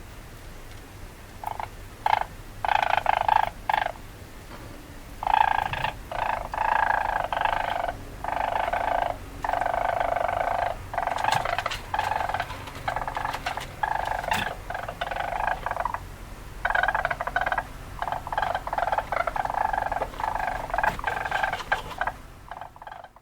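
Weasel chattering: repeated bursts of rapid chatter, each from a fraction of a second to about two seconds long, with short pauses between them. The calls stop just before the end.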